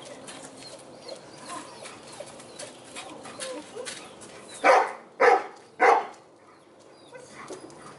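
Hovawart barking three times in quick succession, about half a second apart, a little past halfway.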